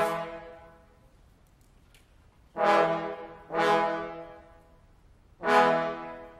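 Four loud, short musical notes from a pitched instrument, each starting sharply and dying away over about a second. The first is already sounding at the start, and the others come about 2.5, 3.5 and 5.5 seconds in.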